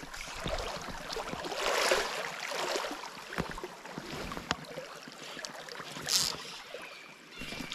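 Shallow river riffle running steadily over gravel, with a few light clicks and rustles from fly line being handled and cast, and a short hiss about six seconds in.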